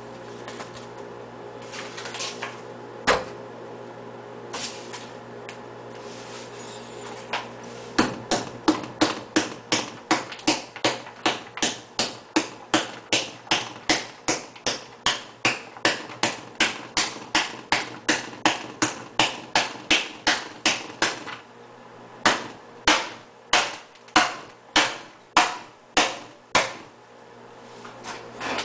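Knocking on an upturned stainless steel stockpot to shake cooked rice loose into the tub below. A few scattered knocks come first, then a long, even run of about two or three knocks a second, then slower knocks about once a second near the end.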